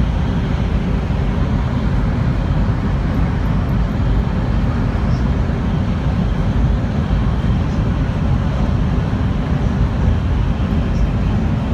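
Shinkansen bullet train heard from inside the passenger cabin while running at about 300 km/h: a steady rumble and rush of running noise, heaviest in the low end.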